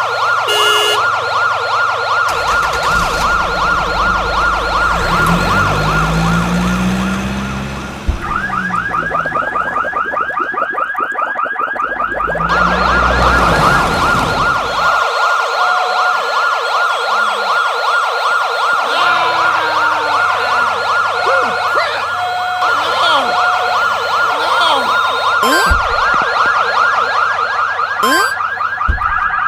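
Toy police car's electronic siren sounding continuously, its pattern switching to a fast repeating warble about eight seconds in.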